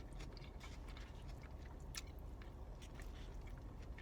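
Close-up chewing of Chipotle food, with small wet clicks and crunches from the mouth, over a low steady hum.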